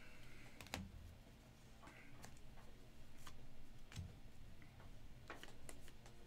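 Faint, scattered light clicks and taps, a few at a time, over a steady low hum.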